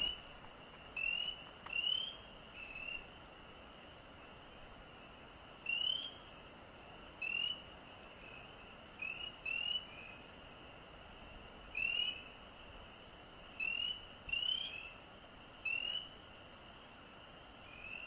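Frogs calling in a marsh: about a dozen short, rising whistled calls, spaced irregularly and sometimes in quick pairs, over a steady high-pitched chorus of more distant frogs.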